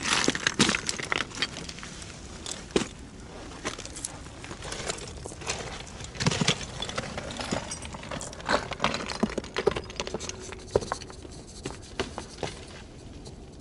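Climbing gear clinking and jangling in an irregular run of clicks, scrapes and rustles close to the microphone, as a climber moves on rock.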